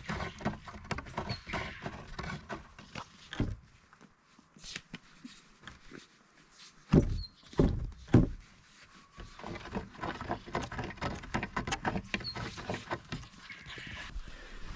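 Chickens clucking amid a run of small knocks and scuffs, with three heavy thumps close together about seven to eight seconds in.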